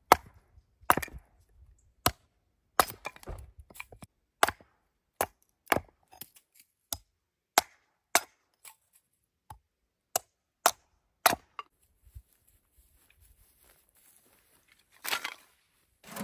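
A series of sharp knocks or cracks at an uneven pace of about one and a half a second, stopping about eleven seconds in; a short rustle follows near the end.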